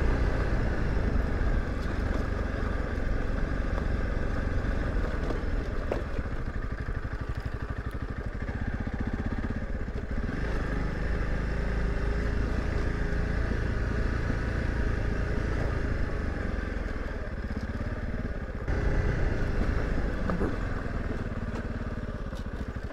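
Honda CRF300 Rally's single-cylinder four-stroke engine running steadily as the motorcycle rides a rough dirt track, with a few short knocks. The engine gets louder for a couple of seconds near the end.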